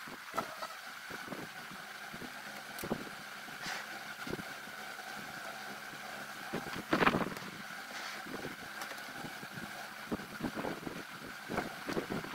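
Wooden beehive boxes being lifted, shifted and set down on a truck tray: scattered knocks and one loud thump about seven seconds in, over a steady background hum.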